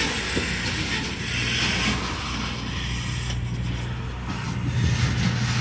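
Freight cars rolling slowly past, their wheels and running gear creaking and clanking over a steady low hum.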